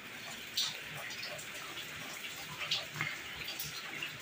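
Steady rain hiss with scattered sharp drips and splashes.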